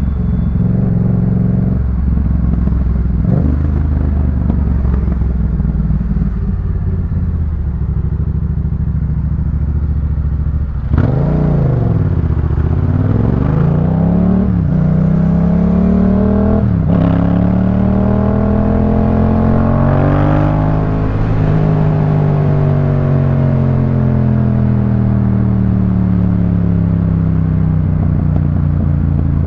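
Yamaha MT-07's 689 cc parallel-twin engine through a Jeskap K4 full aftermarket exhaust, ridden at a steady pitch at first. About a third of the way in, it accelerates up through the gears, with the pitch rising and dropping at each shift. It is then rolled off and slows with a long falling note on the overrun.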